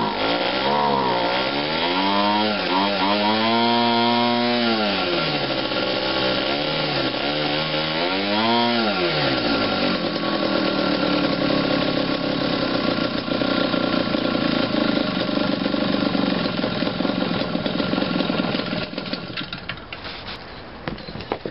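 Small two-stroke gasoline model-aircraft engine running with its propeller, revved up and down several times in the first half, then running steadily before it dies out near the end.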